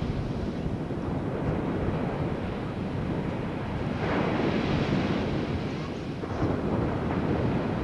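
Ocean surf breaking and washing on the beach, with wind buffeting the microphone; the wash swells louder about halfway through.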